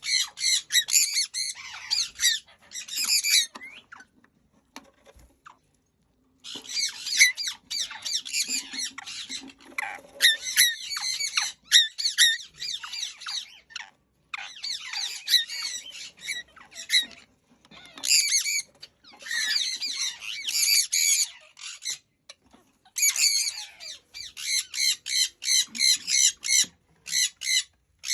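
Conures screeching: harsh calls repeated in quick runs, broken by short pauses, with a longer lull a few seconds in.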